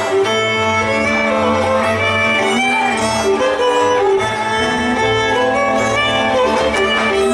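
Hungarian folk string band playing Szatmár dance music: a fiddle leads a lively tune over string accompaniment and a steady bass line.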